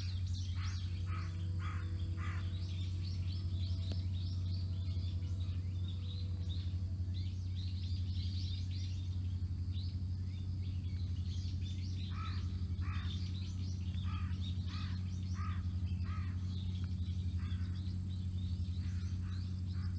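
Birds calling in series of short repeated notes: one run of calls at the start, more chirping through the middle, and another run about twelve seconds in. Under them runs a steady low hum, the loudest sound throughout.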